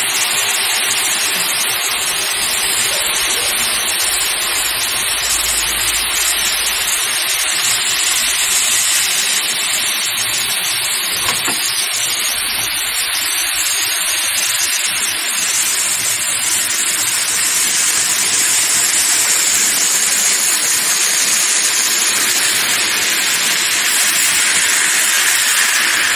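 Red-hot metal ball sizzling as it melts down into a block of ice: a steady hiss of meltwater flashing to steam.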